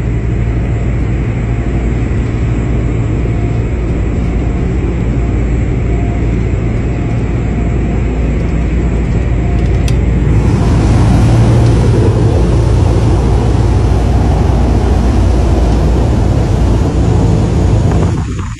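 A motor yacht's engines droning steadily under way, heard from inside the cabin. About halfway through, a door clicks open and the sound gets louder and brighter as rushing wind and water join the engine drone.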